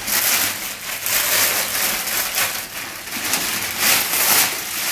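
Clear plastic packaging crinkling and rustling in repeated surges as it is handled and pulled open, loudest about four seconds in.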